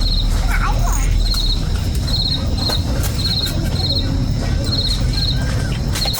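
Insects chirping in short pulsed trills, repeating about once or twice a second, over a steady low rumble.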